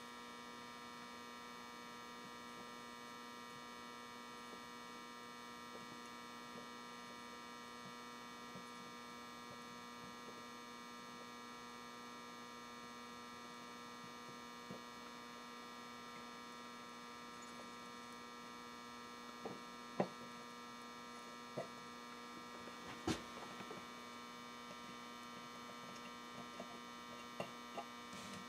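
Steady electrical mains hum, a low buzz with a stack of higher tones above it. A few faint clicks and taps come in over the last third.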